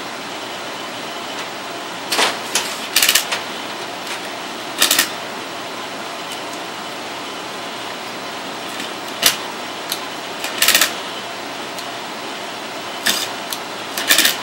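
Short clicks and clattering of hard parts being handled during the battery swap on an APC Smart-UPS 1400, in about seven brief bursts over a steady background hiss.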